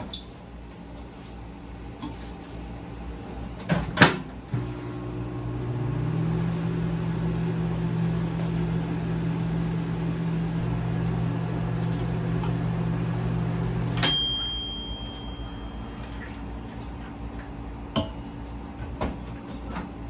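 Microwave oven: a sharp click as it is shut and started, then its steady low hum while it heats for about ten seconds, ending with a click and one long beep when it finishes. A couple of lighter clicks follow near the end.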